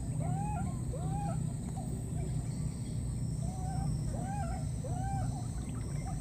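Baby monkey calling: a quick series of short, arched coo-cries that rise and fall, coming in two bursts with a pause of about a second and a half between them. These are the distress calls of an infant looking for its mother.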